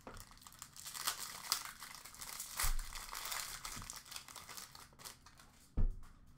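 Packaging crinkling and cardboard rustling as a trading-card box is opened by hand and the pack inside is lifted out. There are two dull thumps, about three seconds in and again near the end.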